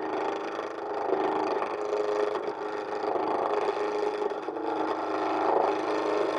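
Chisel cutting into the corners of a square pine blank spinning on a wood lathe: a continuous rough, rattling cut as the tool keeps hitting the corners, over the lathe's steady hum.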